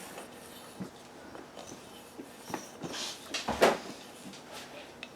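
Spyderco Delica 4's VG10 blade drawn across a wet whetstone in a few light strokes, with faint taps and clicks between them; the loudest stroke comes about three and a half seconds in.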